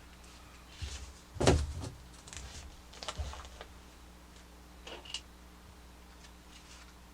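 Small plastic toy parts being handled and set down on a table: a few scattered clicks and knocks, the loudest a sharp knock about a second and a half in, a few lighter ones following.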